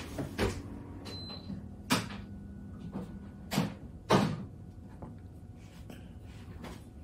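Four separate knocks and thumps over a few seconds, the loudest about four seconds in, like something being handled or bumped. A short faint high beep sounds about a second in.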